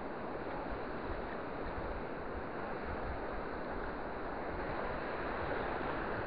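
Small waves breaking and washing over a shallow rocky reef flat, a steady rushing surf, with wind buffeting the microphone.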